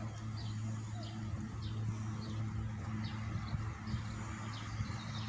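A motor-driven river boat gives a steady low hum. Over it a bird repeats short high chirps about every half second or so.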